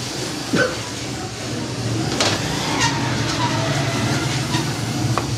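A naswar grinding and mixing machine running steadily: a motor hum with the pestle working powdered tobacco in the turning metal pan, and a few light knocks.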